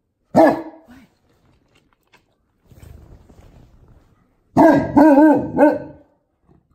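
Newfoundland dog barking in a deep voice: one loud bark about half a second in, then a quick run of three or four barks near the end.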